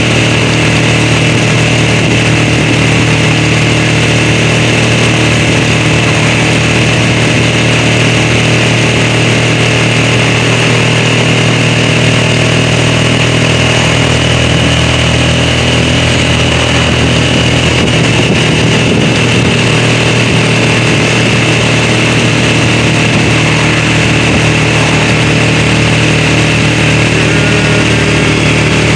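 A vehicle engine running at a constant speed, a loud, unchanging drone with no revving or pauses.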